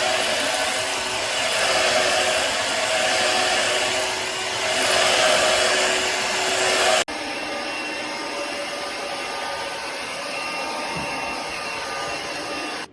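Shark Navigator Freestyle cordless stick vacuum running with a steady whir. About seven seconds in, the sound cuts abruptly to a slightly quieter, steadier run, which stops suddenly at the end.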